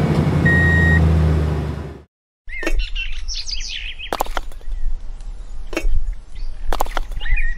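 A truck engine hum with a reversing beep sounds for about the first two seconds, then cuts off. After that, birds chirp throughout, with three sharp clicks as miniature bricks are set down on sand and picked out of a toy truck's bed.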